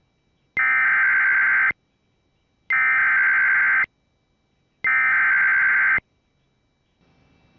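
Emergency Alert System SAME header: a harsh, buzzing digital data burst sent three times, each about a second long with a second of silence between. It encodes the severe thunderstorm warning that follows.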